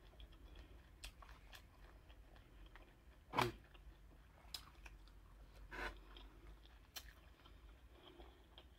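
Close-miked eating of seafood: quiet chewing and mouth sounds, broken by a few sharp clicks and smacks, the loudest about three and a half seconds in.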